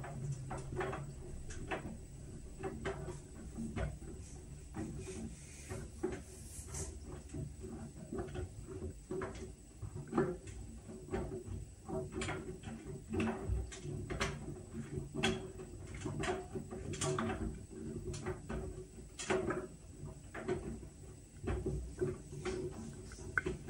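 Whirlpool washing machine running a Steam Refresh cycle: a steady low hum under irregular light clicks and knocks, about one or two a second, as the load tumbles in the drum.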